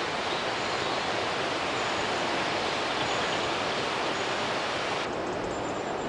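River water rushing steadily, an even hiss. About five seconds in, the higher part of the hiss drops away suddenly.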